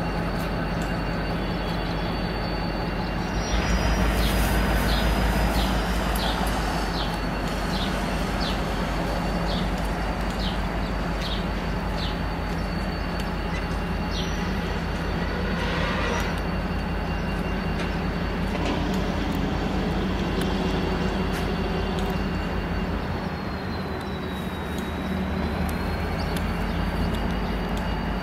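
Diesel-electric engine of a V/Line A class locomotive running as it moves slowly, with a steady high-pitched squeal from its wheels on the rails. The engine gets louder for a couple of seconds a few seconds in, and near the end the squeal dips in pitch and rises again.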